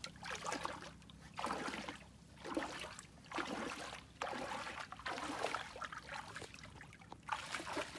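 Bare feet wading through shallow muddy water, each step sloshing and splashing, in a steady run of steps about one a second.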